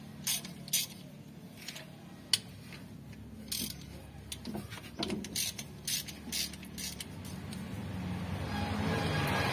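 Socket ratchet clicking and metal tools tapping in irregular short bursts as the bolts holding a Mitsubishi L300 diesel's water pump are undone. A broad rushing noise builds toward the end.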